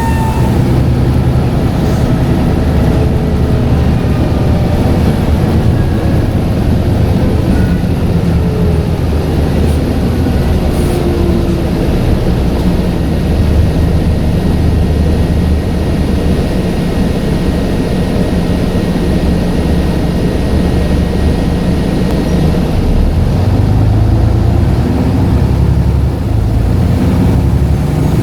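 Scania N94UD double-decker bus engine and drivetrain running on the move, a steady low rumble heard from on board. A whistle-like tone fades out at the very start, and faint whines glide up and down through the middle.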